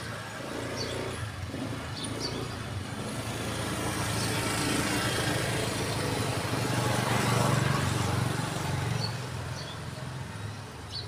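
A motor vehicle's engine running on a street, growing louder to a peak about two-thirds of the way through and then fading, like a vehicle driving past.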